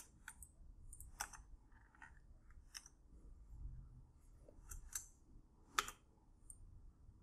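Faint, irregular clicks of a computer mouse and keyboard, about half a dozen, the loudest near the end.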